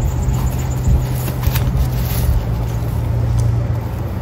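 Wind buffeting the microphone in a loud, gusty low rumble over a steady low hum, with faint crinkles from the plastic bag around a collapsed aluminium telescoping ladder as it is handled.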